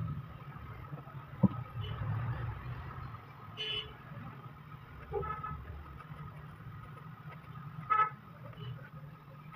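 Steady traffic rumble with short vehicle horn toots, the loudest about eight seconds in, and a sharp click about a second and a half in.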